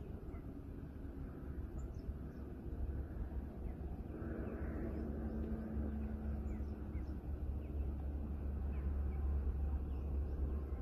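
Steady low outdoor rumble with faint, short, high bird chirps scattered throughout.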